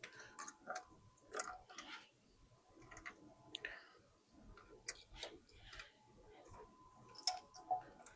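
Faint, irregular clicks and rustling of plastic wiring-harness connectors and loom being handled and laid out.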